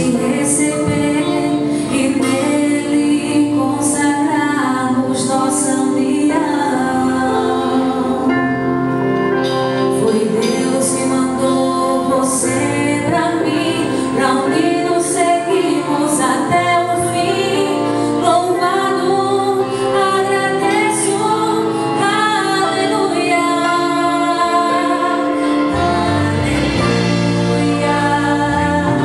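A woman singing lead with a live band: a Roland Juno-Di keyboard, drums with cymbal strikes, guitar and bass guitar playing steadily under her voice.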